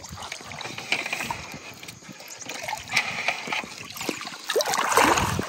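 Shallow river water trickling and lapping around legs set in the stream, with a few small clicks. Near the end comes a louder splash as feet stir the water.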